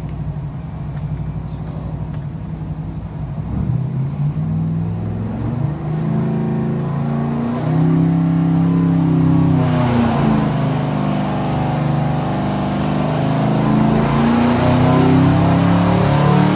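LS3-based stroker V8 engine running under load on an engine dyno, heard through the test-cell window. Its revs climb from about 1,500 to over 4,000 rpm, and it gets louder in steps about four and eight seconds in.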